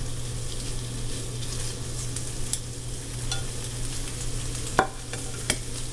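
Cubed chicken tenderloin sizzling in a frying pan greased with cooking spray, with a couple of sharp clicks near the end.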